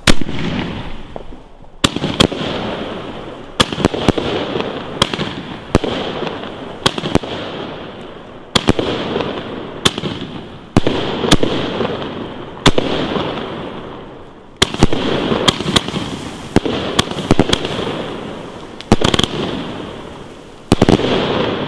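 Funke 'Polyp Variations' consumer firework battery firing a long string of shots, about one a second and sometimes two in quick succession. Each shot is a sharp launch bang followed by a fading hiss, and the first bang is the loudest.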